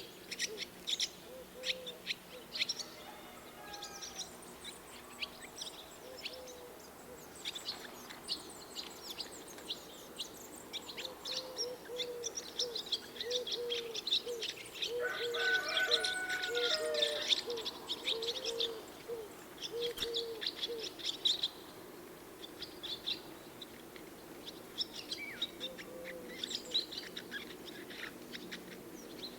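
Swallows twittering in a rapid, dense stream of high chirps. Another bird gives a long series of short, low, hooting notes, thickest around the middle.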